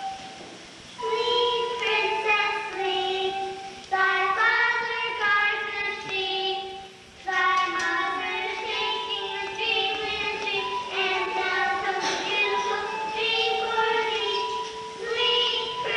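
Young child singing a slow lullaby in long held notes, in phrases that start about a second, four seconds and seven seconds in.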